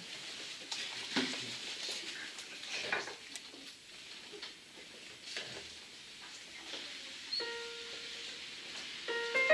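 Shuffling, rustling and light knocks of performers settling in, with a music stand being adjusted. A single held note sounds near the end, then piano playing on a digital piano begins just before the end.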